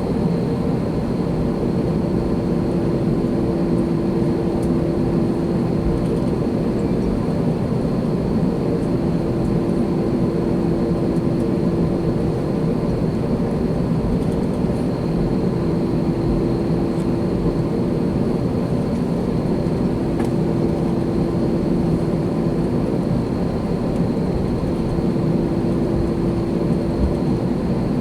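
Steady cabin hum of an Airbus A321 on the ground before takeoff, its engines at idle, with a constant low drone and a faint high whine.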